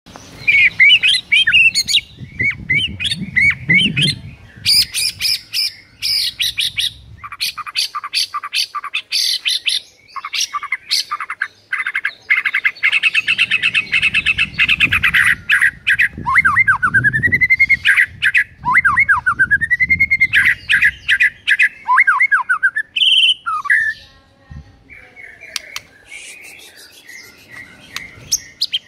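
White-rumped shama singing a long, varied song: rapid chattering notes and sharp clicks, then a run of rising whistled notes in the second half, dropping to quieter notes near the end.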